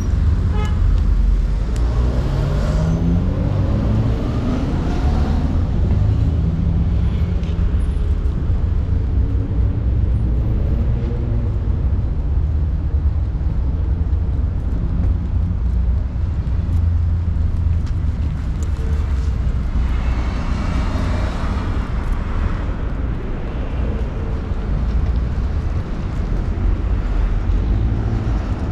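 City street traffic: a steady low rumble of passing cars, with one vehicle's engine rising in pitch as it pulls away a few seconds in and another vehicle passing close about twenty seconds in.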